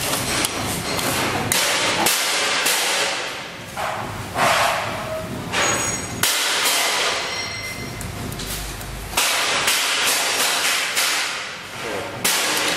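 Irregular sharp metallic knocks and clanks, a dozen or so at uneven spacing, from parts of a sachet packing machine being worked by hand while it is adjusted for a different sachet size.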